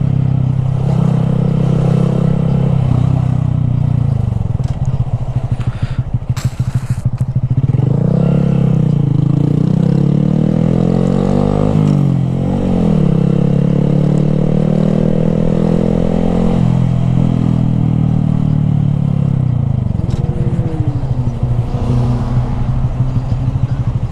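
Honda Grom's small single-cylinder engine running under way, its pitch rising and falling several times as it revs up and eases off through the gears.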